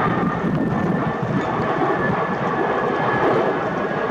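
Jet airliner engines running, with a faint high whine that slowly falls in pitch, heard through wind buffeting the microphone.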